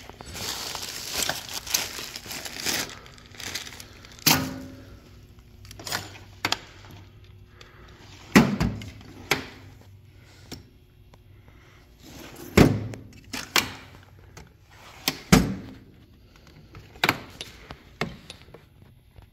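Plastic wrapping crinkling as wrapped tools are handled in a steel toolbox tray, then several sharp metal clunks and rattles as the toolbox drawers are pulled open and shut and the steel end mills inside shift.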